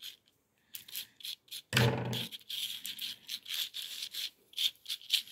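A fingernail scratching and peeling the protective backing off the adhesive areas of a sand-art sheet: a run of short dry scrapes, with a brief low voice sound about two seconds in.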